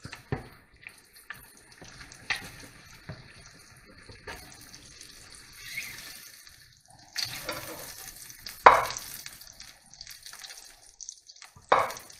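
Eggs frying with a sizzle in a nonstick frying pan while a metal fork and a spatula scrape and knock against the pan, cutting the eggs apart. The loudest knocks come about two-thirds of the way through and again just before the end.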